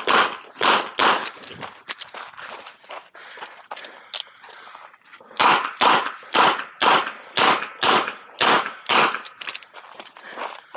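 Smith & Wesson 929 9mm revolver firing: a few quick shots at the start, then after a few seconds of fainter clicks and knocks a fast, even string of shots about two a second.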